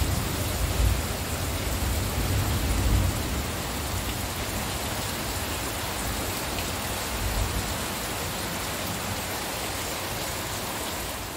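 Heavy rain pouring down steadily, a dense even hiss of water on the ground and surfaces. A low rumble swells underneath during the first few seconds and briefly again later.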